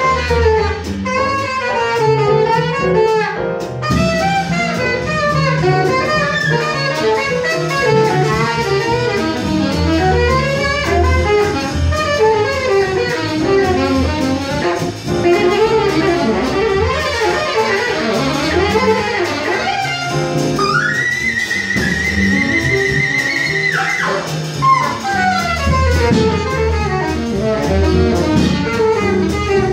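Jazz saxophone solo of fast, running melodic lines over walking double bass and drum kit. About two-thirds of the way through, the saxophone holds a long, high, wavering note for about three seconds, then returns to quick runs.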